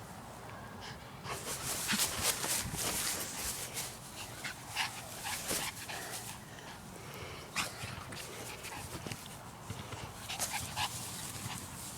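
Two puppies play-fighting, with short yips and whimpers among scuffling noises, starting about a second in and busiest over the next few seconds.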